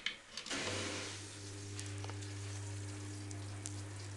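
Small submersible aquarium filter pump switched on under water: its mains motor starts about half a second in with a steady low hum, and the water it pushes out churns with a fizzing hiss.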